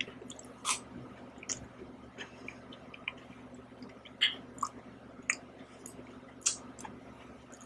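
Close-up eating sounds: a metal spoon scraping soft ice cream and wet mouth sounds of eating it, heard as short separate clicks and smacks about a second apart.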